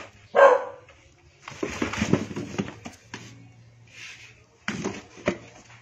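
A kitten scrambling in a cardboard box: cardboard rustling and scraping with small knocks, then a few sharp taps. One short, loud bark-like call comes about half a second in and is the loudest sound.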